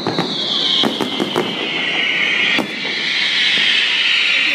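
Fireworks whistling: two long shrill whistles, each falling in pitch, the second lasting about three seconds, with a few sharp bangs among them.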